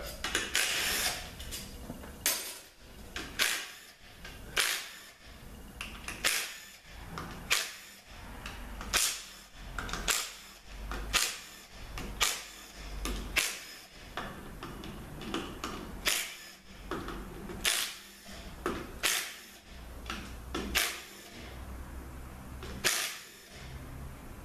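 Hand ratchet clicking in repeated strokes, a sharp clack about once a second, as the valve body bolts are worked loose on a Ford AX4N transaxle.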